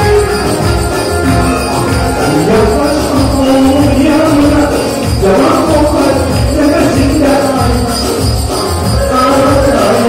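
A man singing into a microphone over upbeat dance music with a steady drum beat, two to three beats a second.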